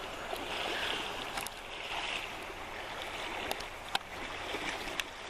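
Creek water running steadily, with a few small clicks about a second and a half in and again near the end.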